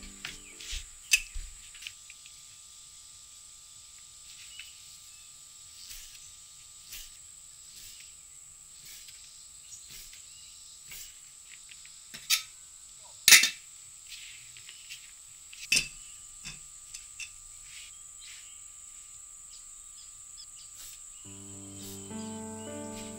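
A steady, high-pitched chorus of insects, broken by a few sharp knocks and taps from handling fresh pasta dough and tools on a table. The loudest knock comes about thirteen seconds in. Music comes back in near the end.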